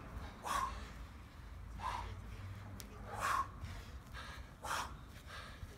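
Short, sharp breaths forced out by people doing martial-arts-style kicks, four of them about a second and a half apart.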